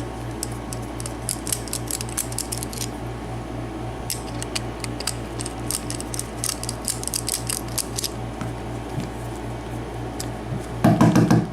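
Quick runs of small metallic clicks and light scrapes from handling a padlock and small hand tools, over a steady low hum. A brief, louder sound comes near the end.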